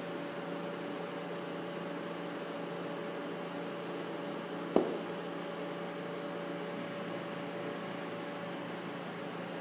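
Steady electrical and mechanical hum of a precision module-assembly machine, with one sharp click about halfway through.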